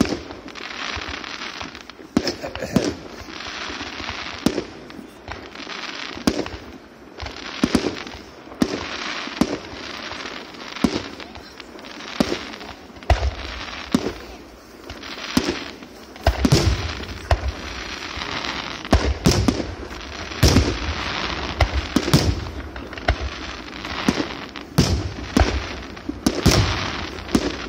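Many fireworks going off in quick succession: sharp bangs, one or more a second, over a continuous crackle. From about halfway through, the bangs come deeper and heavier.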